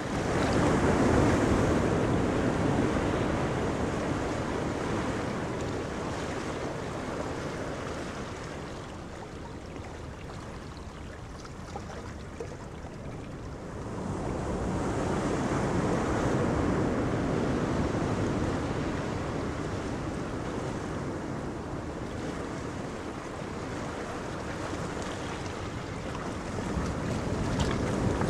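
Wind gusting on the microphone over the wash of choppy sea waves, swelling and easing in long gusts, with a lull about a third of the way in.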